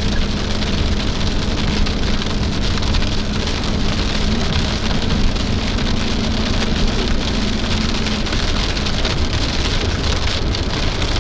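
Heavy rain falling on a moving car, heard from inside the cabin, over a steady low rumble of road and engine noise.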